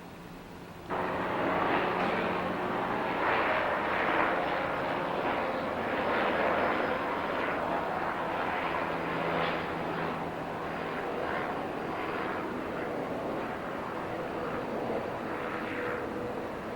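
Steady vehicle noise, a loud rushing with a faint low hum under it, cutting in abruptly about a second in.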